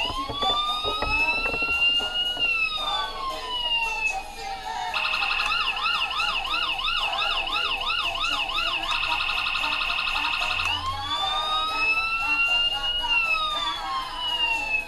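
Electronic siren module in a 1/18 scale Ford Crown Victoria police model car cycling through its patterns. A slow wail rises and falls, then a fast yelp runs at about two cycles a second for about four seconds, then a very rapid warble lasts under two seconds, and the slow wail comes back near the end.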